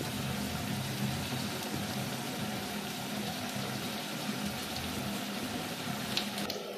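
Pot of mrenda (jute mallow greens) boiling hard with magadi, a steady bubbling hiss that breaks off shortly before the end.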